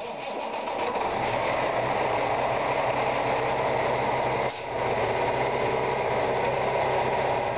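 Heavy truck's diesel engine idling steadily, with a brief dip in level about four and a half seconds in.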